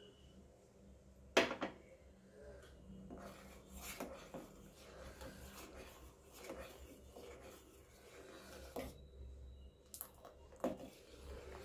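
A steel ladle stirring thick banana and coconut-milk payasam in a stainless steel pot, scraping and clinking against the pot's sides in an irregular run of strokes. A sharp clink about a second in is the loudest sound, with a few more knocks near the end.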